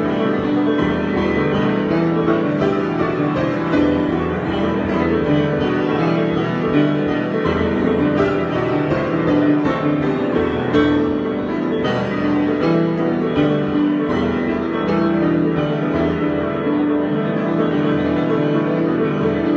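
Solo piano playing an improvised piece, with held, overlapping notes and no pauses.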